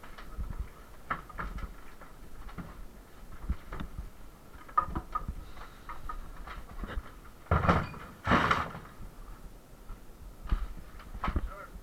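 Demolition of damaged interior partition walls: irregular knocks and clatters, with two louder crashes close together about two-thirds of the way through.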